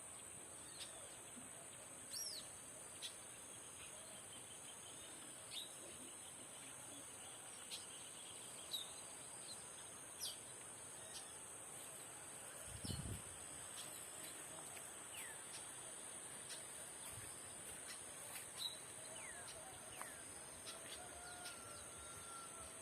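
Birds chirping with short, scattered calls over a steady high-pitched insect drone, faint overall, with one brief low thump about halfway through.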